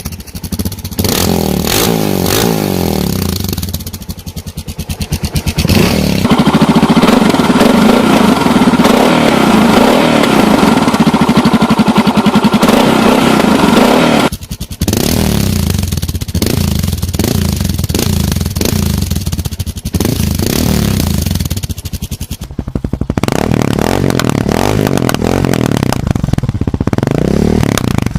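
Suzuki DR 650 single-cylinder engine running through an aftermarket exhaust, its note growing louder about six seconds in and cutting off suddenly halfway through before carrying on.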